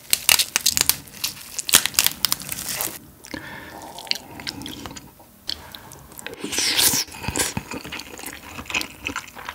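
Gloved fingers squeezing and cracking the shell of a soy-marinated raw crab (ganjang gejang) over rice, a dense crackling for about the first three seconds. About six seconds in, close-miked chewing of a mouthful of the rice mixed with crab and abalone.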